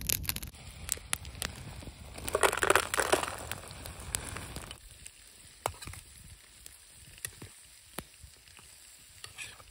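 A plastic bag of frozen mixed vegetables crinkling, and the frozen pieces rattling into a small metal pan, loudest about two to three seconds in. After that, scattered sharp pops and clicks of a campfire and a spatula scraping the pan.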